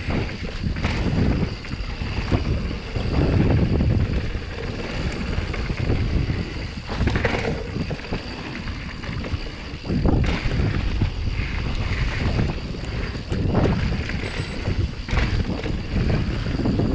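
Yeti SB150 mountain bike ridden over a dirt trail: wind buffets the microphone over a steady tyre rumble, with frequent knocks and rattles as the bike hits bumps.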